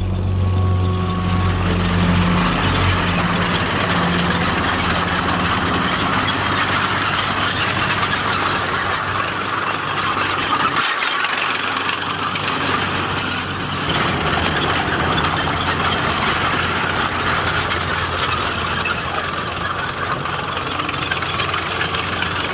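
A G13 Jagdpanzer tank destroyer driving: its engine running steadily under the noise of its steel tracks, with a short dip about halfway through.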